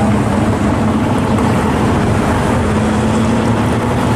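Classic American muscle car engine running through its exhaust as the car drives by, a steady low rumble.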